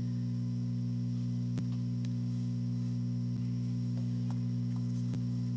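Steady electrical mains hum, with a few faint clicks.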